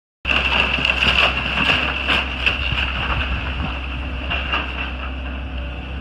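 CASE hydraulic excavator tearing down a wooden house: its diesel engine runs with a steady low hum and a high whine, under repeated cracks and crunches of splintering timber and falling debris. The sound starts abruptly, and the cracking is most frequent in the first three seconds.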